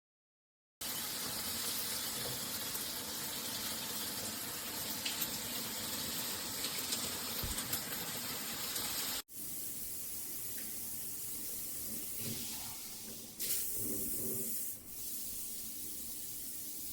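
Shower head spraying water, a steady hiss. About nine seconds in the sound cuts off abruptly and the spray continues, quieter.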